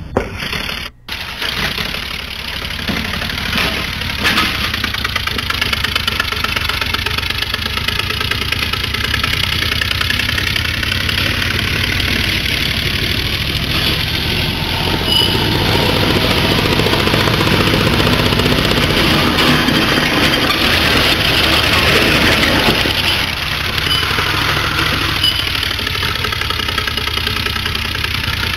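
Homemade three-cylinder compressed-air engine running under load as it drives a lawnmower-based vehicle: a rapid, steady run of exhaust pulses with a tractor-like engine noise. It drops out briefly about a second in, builds over the next few seconds, and is loudest in the middle stretch.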